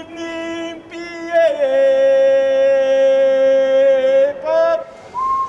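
A man singing long held notes: a steady tone that slides down a step about a second and a half in and holds there, then a short higher note. A thin whistle starts near the end.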